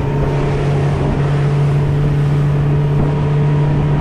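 A boat's motor running at a steady speed while under way: a constant low hum that holds one pitch throughout.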